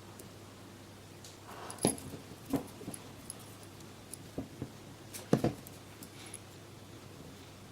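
Scattered clicks and taps of small hand tools and the plastic headphone cup being handled while a covered wire is pressed into the gap around an ear cushion, the loudest knocks about two seconds in and again about five and a half seconds in.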